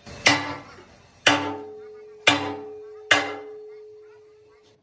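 Four sharp metal strikes about a second apart on a steel excavator bucket, each leaving the heavy steel ringing with a clear tone that dies away slowly.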